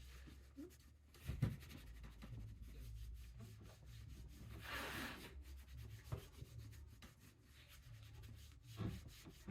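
Faint rubbing and handling noises, with a louder stretch of rubbing about five seconds in and a few light knocks.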